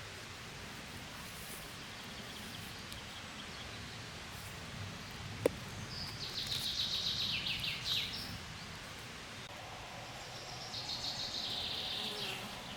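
Outdoor ambience with a songbird singing twice, each song a rapid trill of high notes about two seconds long that drops in pitch toward the end. A single sharp click comes about five seconds in.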